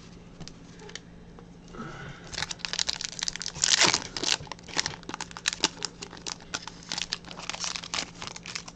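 A plastic trading-card pack wrapper being torn open and crinkled by hand, starting about two seconds in, with the loudest crackle about four seconds in. The crackling goes on as the cards are pulled out.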